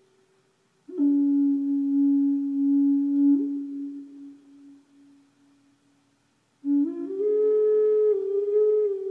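Native American flute playing a slow melody. A long low note enters about a second in and slowly fades away. After a pause, a new note steps up a tone and is held.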